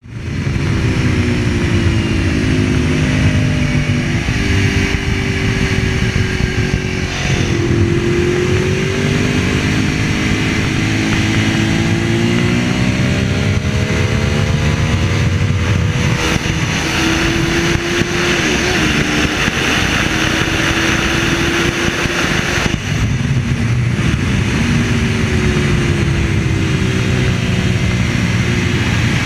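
Ducati 1098's L-twin engine heard from on board at racing speed, its pitch climbing and dropping again and again as the bike accelerates, shifts and brakes, over a steady rush of wind.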